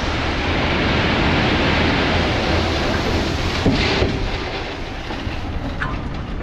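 Dump truck working, a loud, steady rushing noise with a heavy low rumble that eases slightly toward the end.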